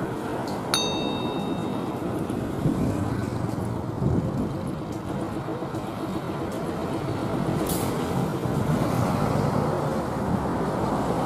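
Steady rumble of an Airbus A330neo's Rolls-Royce Trent 7000 jet engines as the airliner rolls along the runway, growing louder near the end. About a second in, a bright chime of several tones: the ding of a subscribe-button animation.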